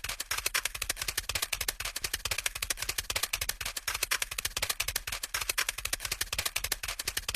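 A fast, even run of sharp clicks, roughly ten a second, over a low steady hum: a small clicking mechanism.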